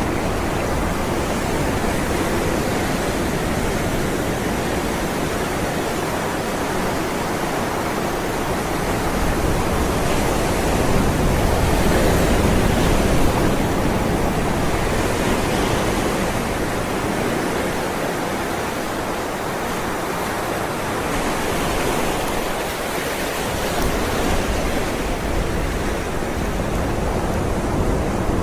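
Ocean waves rolling and breaking in a continuous wash of surf, swelling slowly louder and softer, loudest about halfway through.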